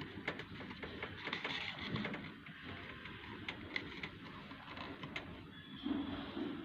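Scattered light clicks and ticks over rustling handling noise, with a louder low thump about six seconds in.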